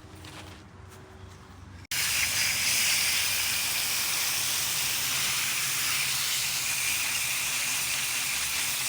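Steady spraying hiss that starts abruptly about two seconds in and holds level: a spray being directed onto an air conditioner's condenser coil to clean it.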